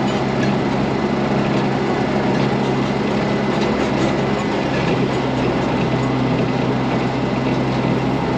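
Heavy diesel engine running steadily while the machine moves, with a constant rattling clatter over it.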